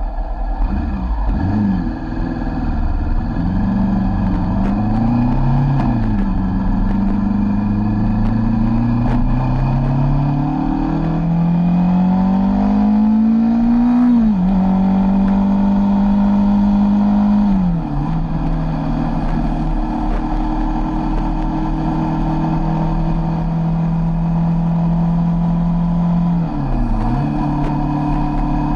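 Sport motorcycle engine under way, pulling through the gears. Its pitch climbs and drops sharply at each upshift, about six and fourteen seconds in. It eases off a few seconds later, then holds a steady cruising note with a brief dip and pick-up near the end.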